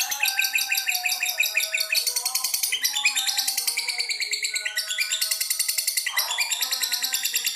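Lovebird giving a long ngekek: a continuous, rapid chattering trill of high chirps repeated many times a second, with a brief break in the pattern about six seconds in.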